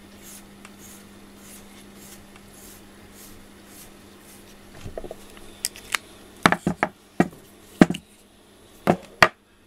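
FURminator deshedding brush drawn through a cat's coat in soft, even strokes about two or three a second, then a run of about ten sharp plastic clicks and knocks from the tool on a hard desk as the shed fur is cleared from it.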